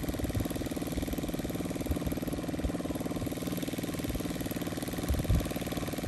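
Engine of a radio-controlled scale Boeing F4B biplane idling steadily on the ground, with a few low thumps near the end.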